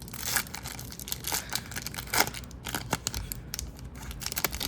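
Hockey trading cards and their foil pack wrapper being handled: crinkling and rustling with many irregular sharp flicks and snaps as cards are pulled out and flipped through.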